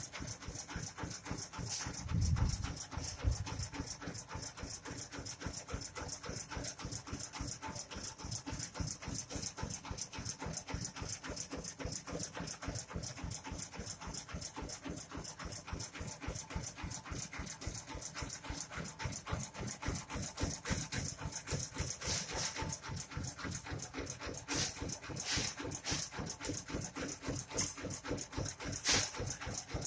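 Diesel engine of a truck-mounted rice mill running steadily, with a fast, even chugging beat, driving the mill. One louder low thump comes about two to three seconds in.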